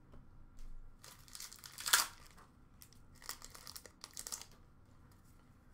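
A trading-card pack wrapper being torn open and crinkled in the hands. There are scattered crackles, the loudest about two seconds in.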